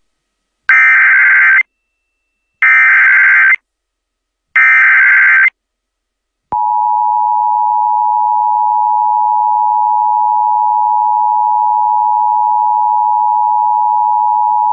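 Emergency Alert System flash flood warning header: three one-second bursts of SAME digital data, each about two seconds apart, then the EAS two-tone attention signal, a steady dual tone (853 and 960 Hz) held for about eight seconds.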